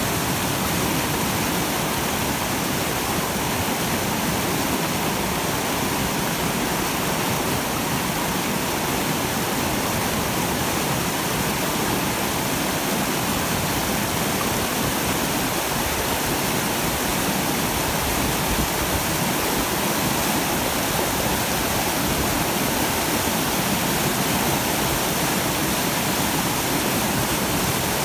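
Fast glacial-meltwater whitewater rushing over a cobble and boulder riverbed: a loud, steady rush of water.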